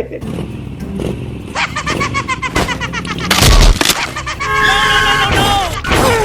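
Added sound-effect track with pitched, wavering tones and a loud crash-like impact about three and a half seconds in, followed by several falling tones.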